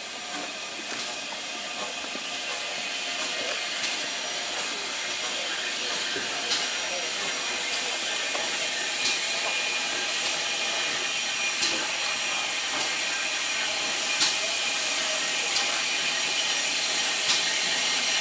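GWR Hall-class 4-6-0 steam locomotive letting off a steady hiss of steam, growing gradually louder. Sharp regular clicks sound about every second and a quarter.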